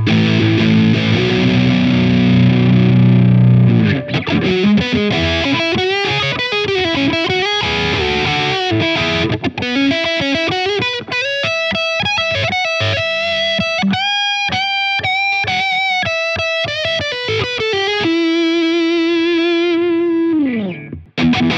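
Donner Hush-X headless electric guitar played through a distorted drive tone with its pickups in active mode. It opens with sustained chords for about four seconds, then moves to a single-note lead with string bends and vibrato on long held notes. A held note slides down in pitch and cuts off near the end.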